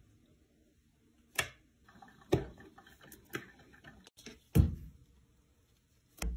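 A piece of fruit knocked on a kitchen countertop by hand. Five or six sharp knocks come about a second apart, the heaviest a little past halfway.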